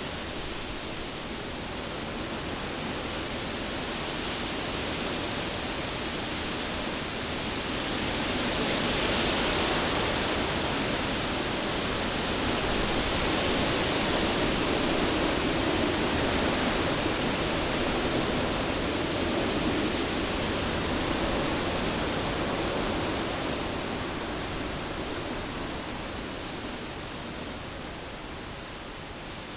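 Cyclone winds blowing in a continuous rush that swells louder through the middle and eases off toward the end.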